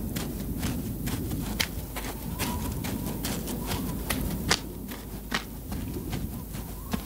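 Footsteps of a person walking on a dirt road, sharp uneven steps about two a second, over a steady low background noise.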